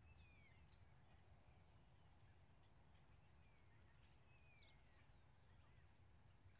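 Near silence: faint outdoor ambience with a low rumble, and a few distant bird calls, thin whistles sliding downward and short high chirps, near the start and again a little past the middle.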